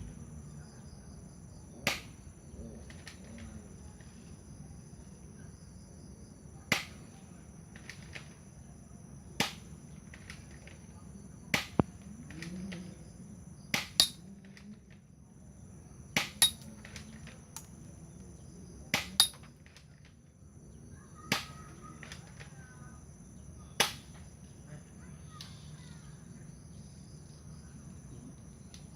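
Airsoft Beretta-type pistol firing single shots of 6 mm BBs, about a dozen sharp cracks a few seconds apart, some in quick pairs. Crickets chirr steadily in the background.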